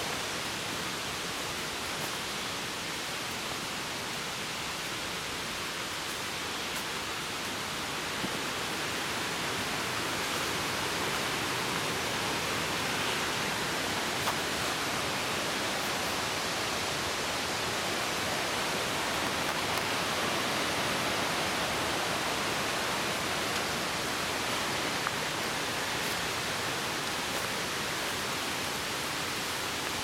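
Steady rushing water, an even hiss that holds unchanged throughout, with a few faint ticks here and there.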